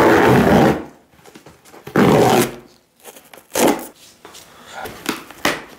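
Cardboard tearing by hand in four short rips as the easy-open tear strip is pulled along a large cardboard box.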